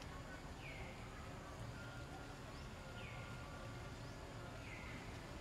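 A bird calling, three short high notes that slide downward, a couple of seconds apart, over a steady low outdoor hum.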